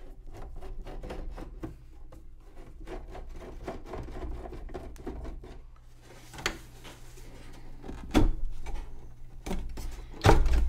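A screwdriver turning out screws in the plastic case of a 1962 RCA sound cartridge player, with a run of fine clicking and scraping, then a few knocks of the case and its top panel being handled, the loudest near the end.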